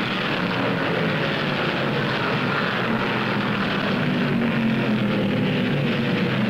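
A pack of 1959 stock cars racing at speed, their engines blending into one steady, dense drone.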